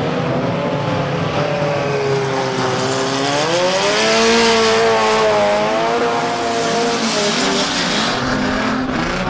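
Unlimited banger race cars' engines running on track, one engine climbing in pitch about three seconds in and easing back down a few seconds later.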